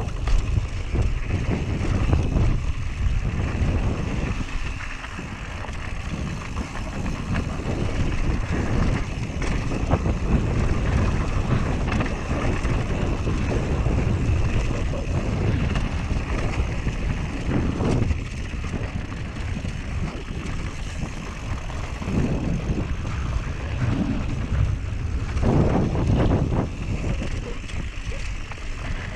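Wind buffeting a GoPro Hero 7's microphone as a Whyte G-170 mountain bike rolls fast down a dirt and stone trail, with tyre noise and the bike rattling over bumps. A few harder jolts come about two-thirds of the way in and near the end.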